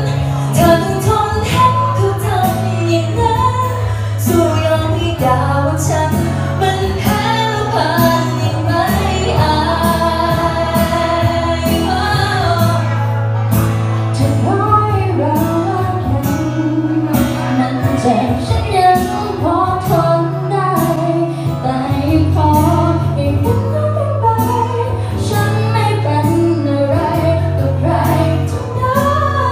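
A woman singing a slow song into a microphone over backing music, with held bass notes that change every few seconds and a steady beat.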